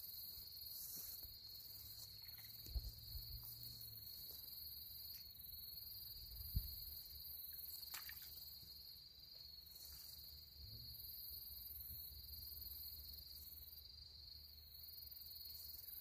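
Faint, steady high trilling of crickets in grass at night, over a low rumble of wind on the microphone. Two dull thumps stand out, about three seconds in and about six and a half seconds in, the second the louder.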